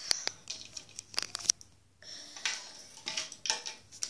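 Handling noises from hands moving Lego toys about on a plastic lid: a few sharp plastic clicks in the first second and a half, then scratchy rustling.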